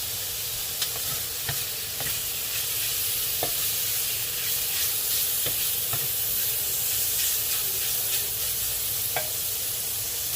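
Pork belly frying in a pan, a steady sizzle as its fat renders out into oil, with a few short ticks and pops along the way.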